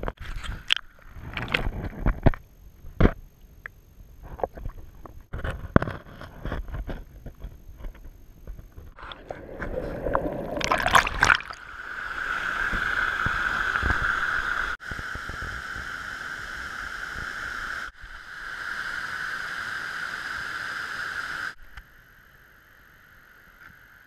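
Water sloshing and bubbling around an underwater action camera, with scattered knocks. From about twelve seconds in comes the steady rush of a river cascade, which drops away shortly before the end.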